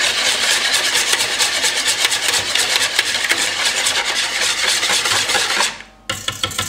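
Wire balloon whisk beating eggs in a plastic mixing bowl: a fast, steady run of scraping, clicking strokes against the bowl. It stops about six seconds in, then starts again briefly.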